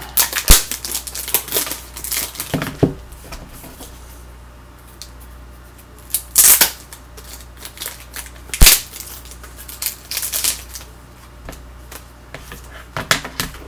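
Trading cards in plastic toploaders being handled: irregular clicks, taps and rustles, with a few louder sharp clicks about half a second in, around the middle and near the end.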